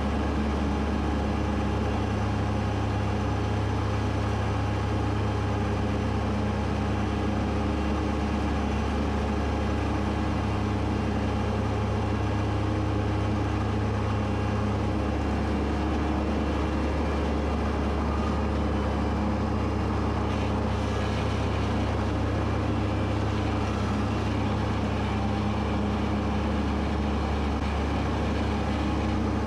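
Kubota B2601 compact tractor's three-cylinder diesel engine running at a steady speed, with the mower cutting thick, wet grass; an even, unbroken drone with no changes in speed.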